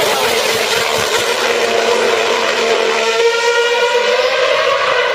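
Formula 1 2.4-litre V8 engine running at high revs with the rasp of an exhaust-blown diffuser, holding a fairly steady pitch.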